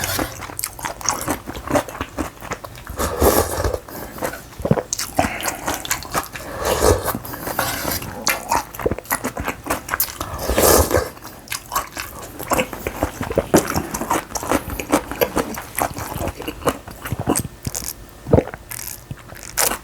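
Close-miked eating of noodle soup, rice ball and radish kimchi: steady chewing and crunching with wet mouth clicks, broken by a few longer, louder bursts every few seconds.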